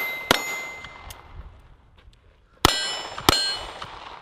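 Pistol shots striking steel plate targets: three sharp shots, the first just after the start and two more a little over half a second apart about two and a half seconds later. Each is followed by a metallic ring from the steel that fades over about a second.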